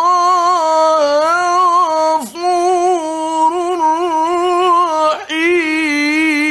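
A male Quran reciter's voice in melodic tajwid recitation, drawing out long sung notes with small wavering ornaments. It breaks briefly twice, about two and five seconds in.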